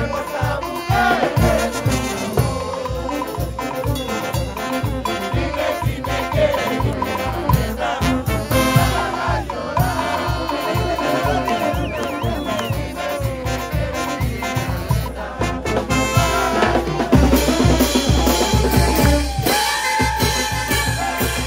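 Live brass band playing, with trumpets, saxophones and sousaphones over a bass drum, cymbals and congas keeping a steady beat. It swells louder about three quarters of the way through, with long held brass notes near the end.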